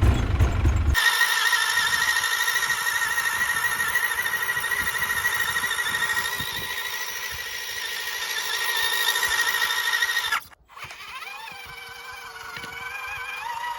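A steady, high-pitched, slightly wavering whine from a small electric motor and gearbox, which cuts off abruptly about ten seconds in. A quieter whine then rises and falls in pitch.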